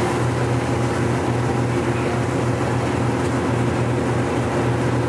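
Steady low drone of the Queen Emeraldas water bus's engines, heard inside its passenger cabin: a constant hum with a few held low tones.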